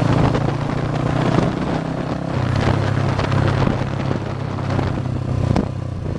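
Motorcycle engine running steadily while riding along a road, with scattered clicks and rattles over the hum.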